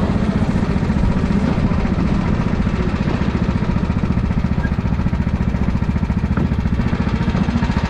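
Racing kart engine running steadily with a rapid, even putter, holding its speed without revving up or down.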